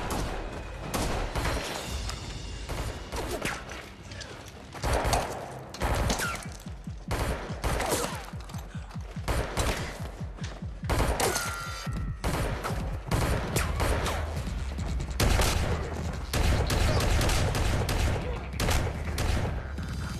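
Film gunfight sound: a long run of gunshots, many fired in quick succession with short gaps between bursts, mixed over a steady low background.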